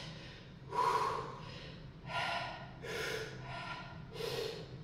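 A man breathing hard and forcefully between reps of a 100 kg barbell back squat set: a run of quick blowing breaths, about one a second.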